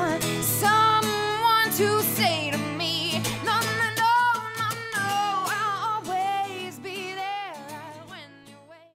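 Background pop song with a sung vocal line over instrumental accompaniment, fading out near the end.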